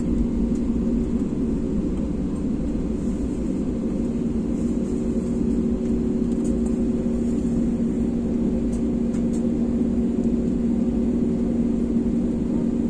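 Jet airliner's engines running steadily at low power, heard from inside the cabin: an even rumble with a steady low hum and no spool-up, while the plane taxis onto the runway.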